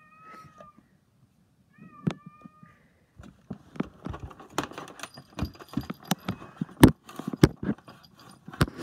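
A kitten meows twice in the first couple of seconds, then a busy run of sharp clicks and knocks follows as it paws and bites at a plastic singing-fish toy.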